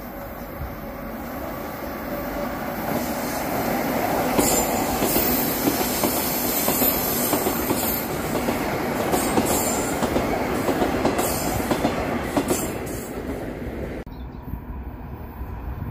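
A metro train runs past on a curving open-air track, its wheels clattering and squealing. It grows louder to a peak midway, then fades. Near the end the sound cuts abruptly to a quieter, more distant train.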